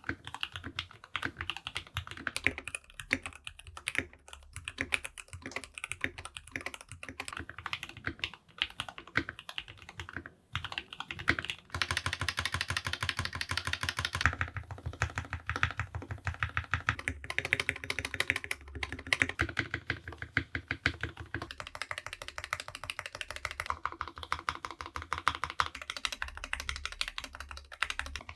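Typing on a Keychron K6 Pro mechanical keyboard with Gateron linear switches: a rapid run of keystroke clacks, packed densest about twelve seconds in.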